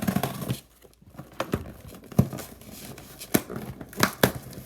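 A mail package being opened by hand: packaging tearing and crinkling, with several sharp crackles spread through.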